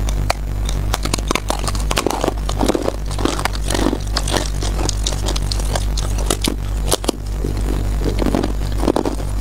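Close-up biting and chewing of a disc of packed powdery ice, a dense run of crisp crunching and crackling. A steady low hum runs underneath.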